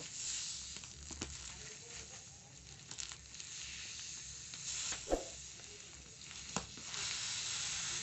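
Air hissing steadily through a small hole snipped in a vacuum-packed plastic bag around a silicone-fibre pillow: the vacuum is being lost and the pillow is starting to expand again. A few light clicks as the plastic is handled.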